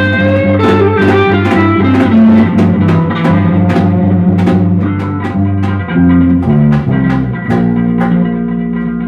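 Band playing samba-reggae music, guitar over a steady beat of drum strokes. About seven and a half seconds in the drumming stops and a chord is held.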